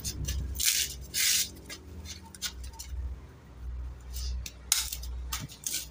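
Fresh green corn husks being cut with a kitchen knife and torn off the ears: irregular crisp rips and rustles, a few louder strokes among them.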